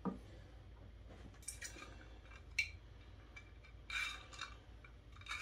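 Faint handling sounds: a few light scrapes and clicks of a plastic air vent being placed against and lifted off a plastic enclosure while its position is marked, the clearest about two and a half and four seconds in.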